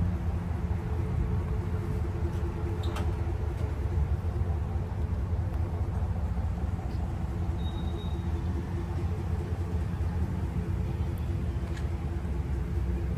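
Moving vehicle on the road: a steady low rumble of engine and tyres, with a few faint clicks.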